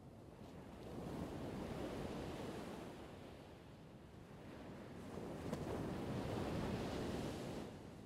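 Ocean surf: two waves wash in one after the other, each swelling and fading over a couple of seconds, the second cutting off suddenly near the end.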